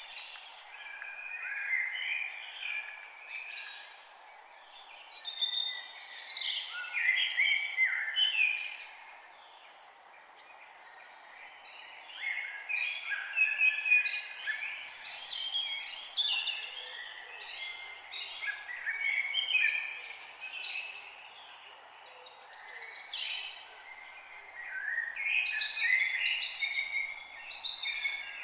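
Several songbirds singing and chirping over one another in quick, sweeping phrases that come in waves every few seconds, over a faint steady hiss.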